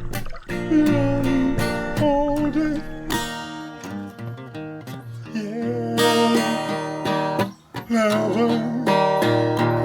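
Background song with strummed acoustic guitar and a singing voice.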